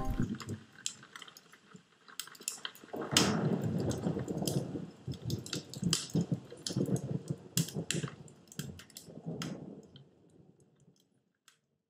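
Wood fire crackling and popping over a low rush of flames. It grows louder about three seconds in and fades out near the end.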